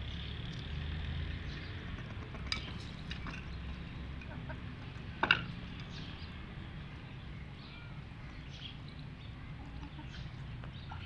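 Chickens feeding: soft clucking and scattered small ticks of beaks pecking, over a steady low rumble. A sharp knock a little after five seconds in is the loudest sound.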